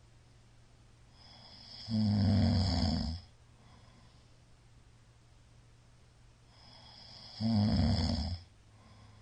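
A middle-aged man snoring heavily in his sleep after heavy drinking: two loud snores about five and a half seconds apart, each about a second long, with a quieter breath building up before each.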